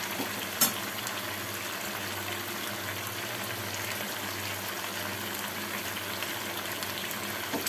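Potatoes and cauliflower sizzling steadily in a hot kadai as the dry curry cooks down, with one sharp clink about half a second in as a spoonful of ghee goes in.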